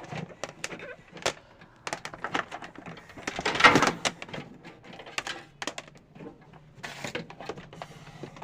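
Clicks, knocks and rustling of RCA cable plugs being handled and pushed into the jacks on the back of a cassette deck, with a louder scraping burst a little past three seconds in.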